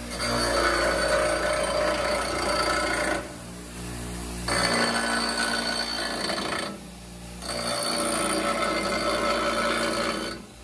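Bench grinder wheel grinding the steel head of a metal-shaping body hammer, reshaping the face, with a ringing whine. Three stretches of grinding of two to three seconds each, with short pauses where the hammer comes off and the grinder runs on alone.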